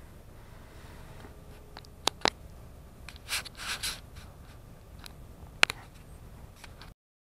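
Handling noise from a GoPro camera in its mount inside a car: a few sharp clicks and short rubbing and scraping noises over a low, steady rumble from the car. The sound cuts off abruptly near the end.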